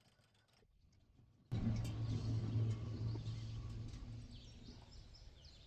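Home-built band sawmill's motor running with a steady low hum, starting suddenly about a second and a half in and gradually fading. Birds chirp faintly near the end.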